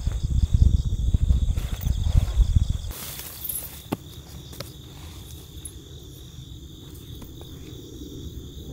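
Crickets chirring steadily in dry autumn grass. For the first three seconds wind rumbles on the microphone, the loudest sound, then it drops away and a few faint footsteps on the grassy path are heard.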